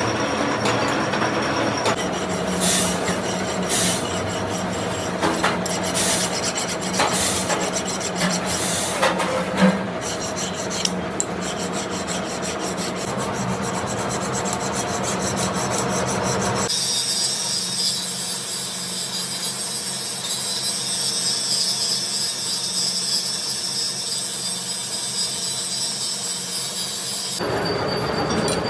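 Lathe running while a compressor crankshaft is machined, metal scraping and rasping on metal with scattered sharp clicks. About two-thirds of the way through, the sound switches abruptly to a higher hissing whine, then goes back to the earlier scraping shortly before the end.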